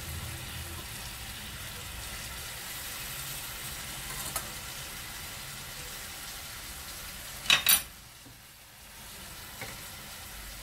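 Shredded kadaif pastry frying in butter in a pan, with a steady sizzle. Two sharp knocks come close together about seven and a half seconds in.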